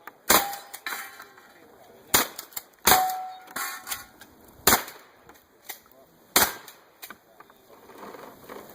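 Winchester 1300 pump-action shotgun firing five shots over about six seconds, with fainter clicks between them. A brief metallic ring follows two of the shots.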